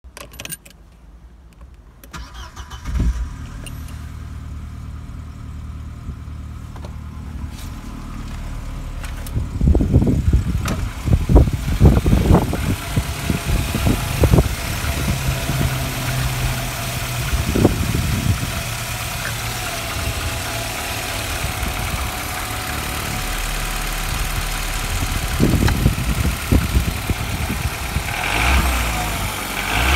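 Audi 80 B4's 2.0-litre ABK inline-four petrol engine starting about three seconds in, then idling steadily, with some louder irregular bursts of noise partway through.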